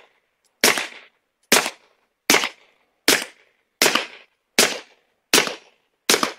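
Taurus G3 Tactical 9mm pistol firing 147-grain Hornady XTP subsonic rounds through a Rugged Obsidian 45 suppressor: eight sharp shots at an even pace, about one every 0.8 seconds, each with a short ring after it. The pistol cycles every round without a malfunction.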